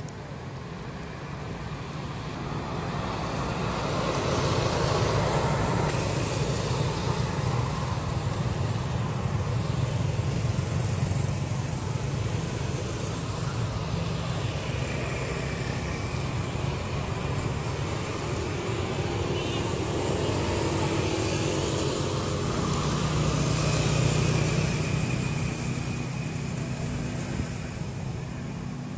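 Road traffic going past: a steady rushing vehicle noise that swells and fades slowly, loudest about five seconds in and again a few seconds before the end.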